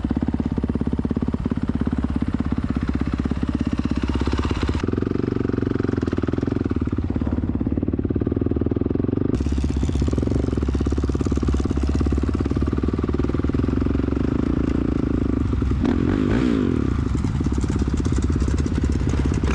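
A Honda CRF450R dirt bike's four-stroke single-cylinder engine runs steadily as it is ridden slowly over sand, heard close up from the bike.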